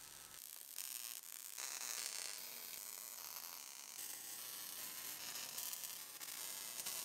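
Welding arc sizzling and crackling on sheet-steel body panel seams, laid down in short stretches that start and stop every second or so.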